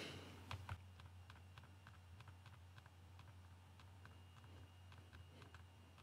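Faint computer mouse clicks, irregular and many, as checkboxes are ticked one after another, over a low steady hum.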